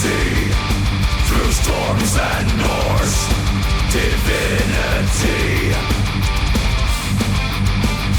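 Melodic death metal music: distorted electric guitars over heavy drums, loud and unbroken.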